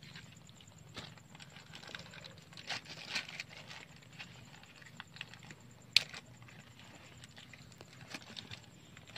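Mesh and frame of a round crab net trap rustling and scraping as it is handled with a mud crab inside, with scattered small clicks, a busier patch about three seconds in and one sharp click about six seconds in. A steady high trill runs behind it.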